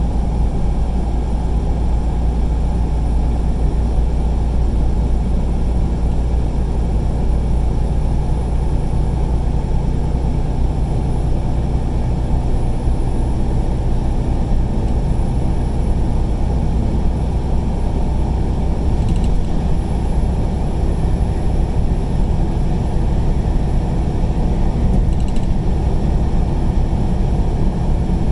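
Steady low drone of a vehicle driving at highway speed, heard from inside the cab: engine hum and tyre and road noise, with a couple of faint clicks in the second half.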